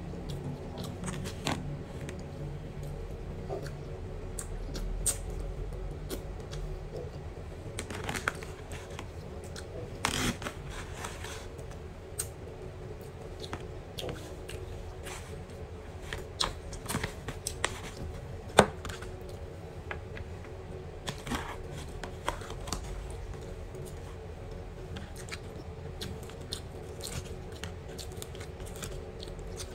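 Metal spoon scraping and clicking against a plastic takeaway container as rice is scooped up, with chewing between scoops. The clicks come at irregular intervals, one sharper than the rest about two-thirds of the way through, over a steady low hum.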